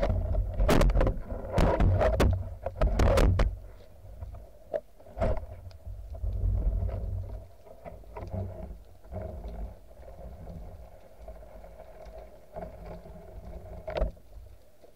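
Underwater knocks and scrapes picked up through a speargun-mounted camera's housing, with a low water rumble. The noise is loud and jumbled for the first few seconds, then drops to scattered lighter knocks as the gun works along a rock crevice.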